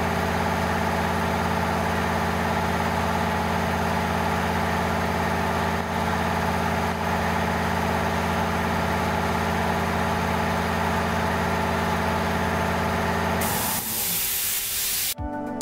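Electric-motor piston air compressor (WALTER GK 880-5.5/500 P) running steadily under load as it pumps up its 500-litre tank. About 13.5 seconds in, the motor stops as the tank reaches full pressure and the pressure switch cuts out. A short, loud hiss of air follows from the unloader valve venting the pump head.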